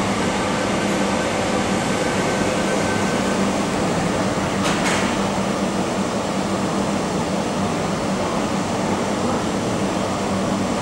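Steady rumble and hum of an MTR Kwun Tong Line M-Train running away into the tunnel, mixed with the station's ventilation noise. There are two short knocks about five seconds in.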